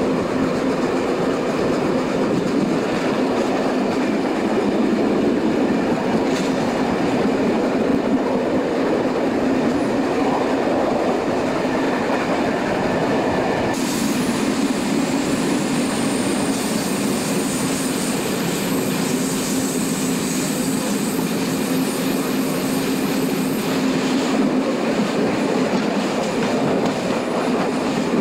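Passenger coach wheels running over the rails of a steam-hauled train, heard from an open carriage window: a steady rumble and clatter. About halfway through, a high wheel squeal sets in as the train rounds a curve, and it fades out after about ten seconds.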